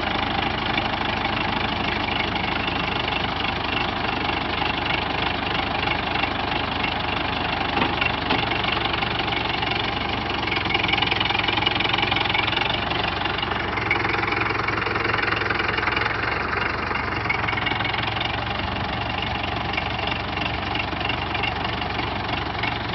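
U650 tractor's four-cylinder diesel engine running steadily, getting a little louder for a few seconds about halfway through.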